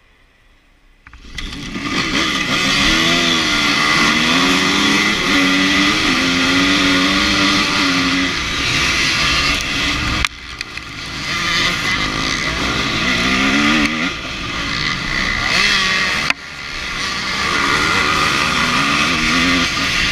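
After about a second of quiet, a pack of enduro motorcycle engines comes in all at once at full throttle off the start line. The onboard bike's engine then revs hard as it accelerates across a rough field, its pitch climbing and dropping through gear changes. The sound cuts down sharply twice, near the middle and about two-thirds in, before building again.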